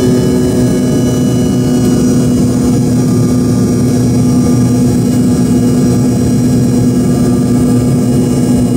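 Steady cabin drone of an Embraer 145's rear-mounted Rolls-Royce AE 3007 turbofan engine just outside the window during the climb. It is a constant low hum with faint high whining tones over rushing noise.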